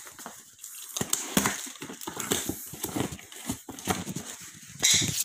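Irregular knocks and metallic clatter of parts being handled as a brake disc is fitted back onto the wheel hub, loudest about a second in and again near the end.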